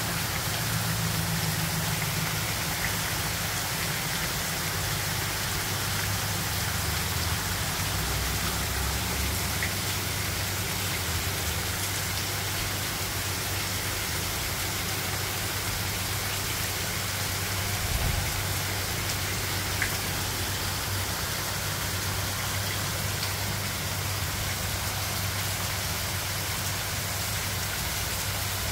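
Heavy rain falling steadily, an even hiss, with a low steady hum beneath and one brief thump about two-thirds of the way through.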